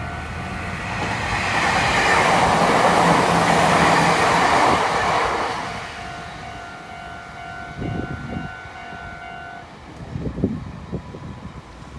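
Meitetsu electric train passing over a level crossing: a loud rush of wheels and running gear swells, peaks and fades away. Meanwhile the crossing's electronic warning bell rings steadily, then stops about ten seconds in, followed by a few dull thumps.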